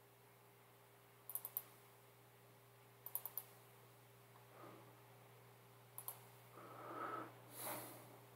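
Faint computer mouse clicks in quick groups of two to four, at about a second and a half, three seconds and six seconds in, over a low steady electrical hum. A short soft noise near the end is louder than the clicks.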